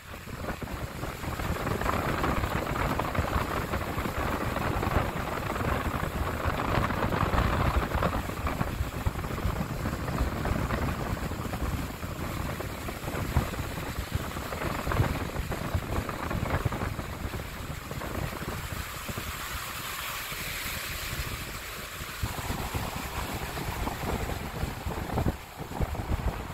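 Wind buffeting the microphone over a steady, fluctuating rush of noise.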